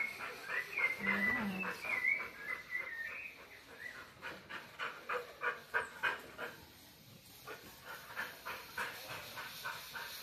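Dog whining in high, wavering tones for the first few seconds, then quick, rhythmic panting.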